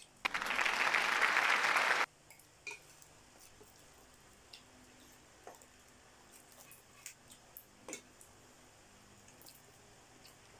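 A loud burst of hiss-like noise lasting about two seconds starts at once and cuts off suddenly. Then comes a quiet stretch of scattered light clicks of spoons and forks on metal plates as children eat.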